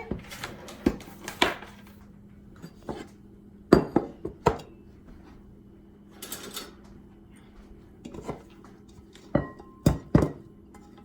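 Kitchen bowls and utensils being handled: scattered knocks, clinks and a short scrape, a few of them ringing briefly near the end.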